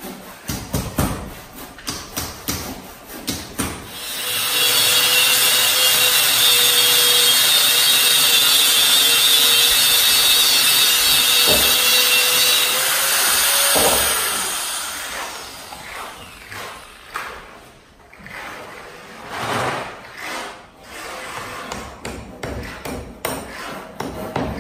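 Irregular strokes and knocks on wood, then a corded handheld electric power tool runs steadily on a wooden frame for about ten seconds and winds down. After it come scattered scrapes and knocks of wood being worked by hand.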